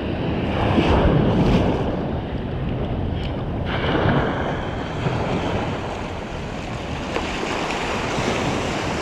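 Ocean surf washing in and breaking around the angler's legs in the shallows, swelling and easing, with wind buffeting the microphone.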